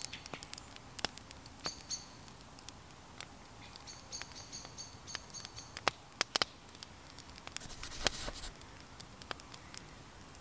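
Scattered pops and crackles from a small wood fire, with a bird giving quick series of high chirps twice and a brief rustling burst about eight seconds in.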